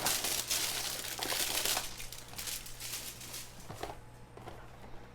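Plastic wrapping being torn and crinkled as a box of football card packs is opened. The crinkling is loudest in the first couple of seconds, then turns into fainter, scattered crackles.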